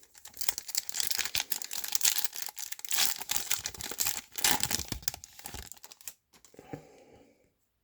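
A foil trading card pack wrapper being torn open and crinkled, a dense crackling rustle lasting about six seconds, then a little faint handling before it stops.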